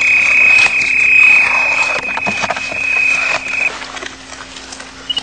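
Beep Mat electromagnetic survey instrument's buzzer sounding a single high beep for about three and a half seconds, signalling magnetite under the mat. It is being dragged over rock, with scraping and knocking under the tone.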